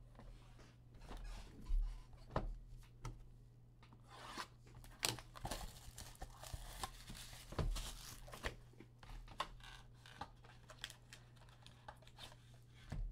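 Tearing and crinkling of wrapping, with scattered clicks and scrapes of cardboard, as a Panini Prizm Draft Picks football card box is opened by hand; the tearing is thickest in the middle of the stretch.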